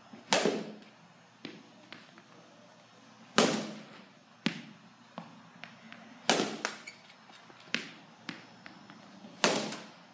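Baseball bat hitting pitched balls in a batting cage: four sharp cracks about three seconds apart, each followed by a short ringing echo. Fainter knocks fall between them.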